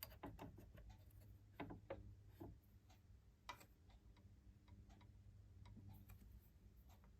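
Near silence with a faint low hum and scattered soft clicks and taps, from a cotton swab and fingers working around a sewing machine's bobbin area.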